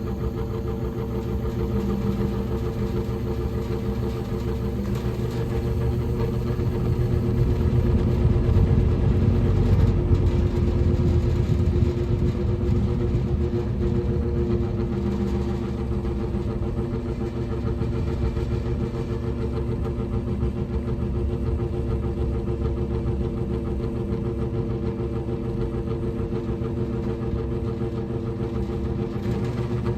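Vintage General Electric W25 box fan running, a steady motor hum and blade air noise, with the sound swelling for a few seconds about a third of the way in and then settling. Its under-lubricated motor is being woken up by switching between medium and low speed.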